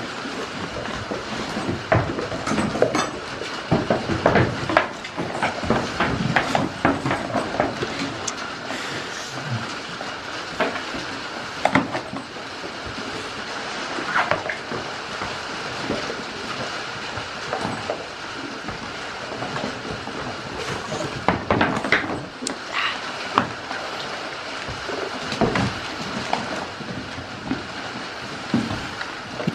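Goats nosing and rummaging in a black rubber feed bucket: irregular knocks, scrapes and clatter as their muzzles and horns bump the bucket.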